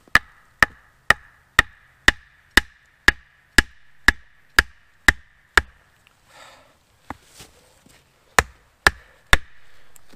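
Penobscot Bay kindling axe striking a wooden backrest post: a dozen sharp blows about two a second with a ringing note carrying between them, then a short pause and three more blows near the end.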